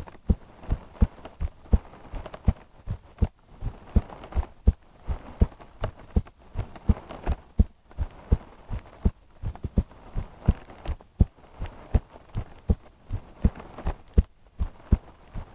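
A woman's heartbeat heard up close, a steady, even run of low lub-dub double thumps.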